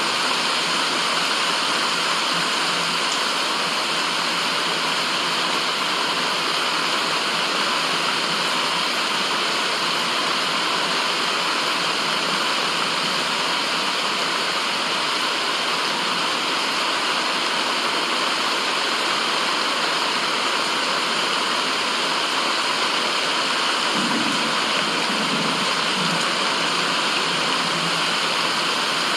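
Steady white noise: an even, rushing hiss like falling water that does not change, with a faint low murmur briefly near the end.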